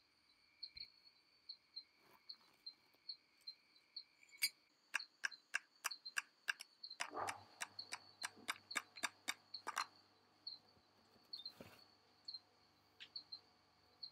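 A run of sharp, evenly spaced clicks, about three a second, starting about four seconds in and stopping near ten seconds. Under them a steady high-pitched insect-like trill with small regular chirps keeps on.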